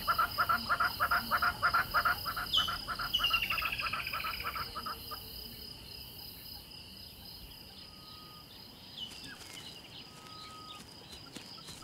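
Bush ambience: insects trilling steadily, with a bird calling in a fast run of repeated notes, about five a second, that fades out about five seconds in. A few short chirps and two brief whistles follow.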